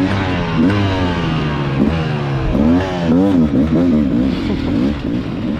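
Several two-stroke enduro motorcycle engines revving, their pitches rising and falling over one another.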